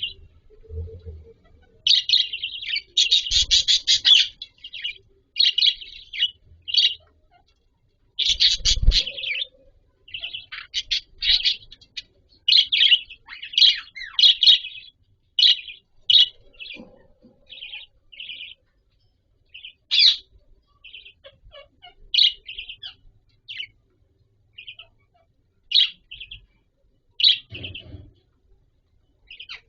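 Budgerigars chirping in quick, high, scratchy bursts of calls, thicker in the first half and sparser later. Two or three dull low knocks sound under them.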